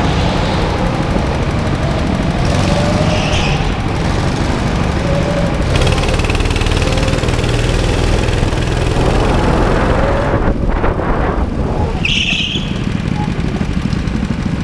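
Go-kart engines running steadily with a low rumble, heard from on board a kart lapping the track. A brief higher-pitched sound cuts in about three seconds in and again about twelve seconds in.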